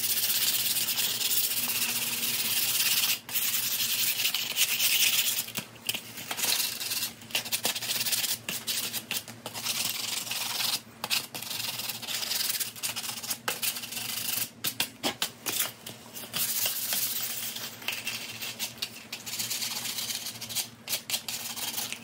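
Coarse sandpaper rubbed by hand along a hickory hatchet handle, scratching off the factory coating down to bare wood. It is one continuous scratch at first, then about three seconds in it breaks into many quick back-and-forth strokes with short gaps between them.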